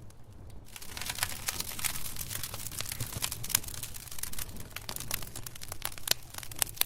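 Wood fire crackling, with many sharp, irregular pops and snaps over a low rumble. Less than a second in, the hiss and crackling suddenly grow denser and louder.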